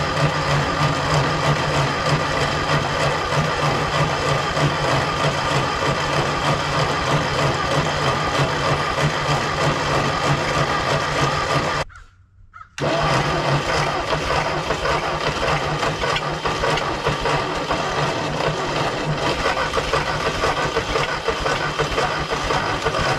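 Ford 8N tractor's four-cylinder flathead engine being cranked over by its electric starter without catching, in two long runs with a short break about twelve seconds in.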